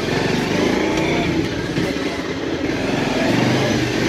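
KTM 390 motorcycle's single-cylinder engine running steadily while riding.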